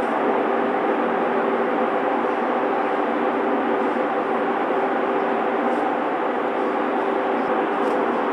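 Steady mechanical hum of an underground metro station, with several held tones over a constant drone that does not rise or fall.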